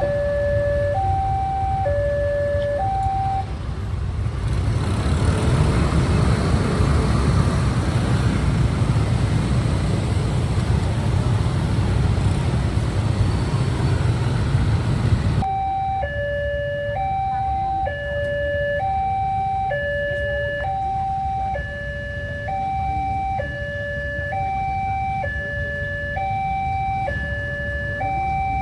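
Railway level-crossing warning alarm sounding an electronic two-tone signal, a high note then a lower note, repeating a little over once a second. About four seconds in, a loud rumbling rush of noise drowns the alarm. It cuts off abruptly about fifteen seconds in, and the alarm is heard plainly again.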